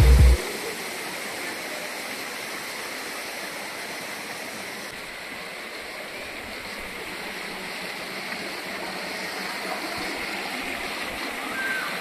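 Shallow rocky stream rushing and splashing over stones, a steady rush of water.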